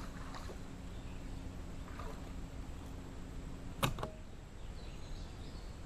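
A small bass being landed on a bass boat: two sharp knocks close together about four seconds in, over a faint steady hum that stops at the first knock.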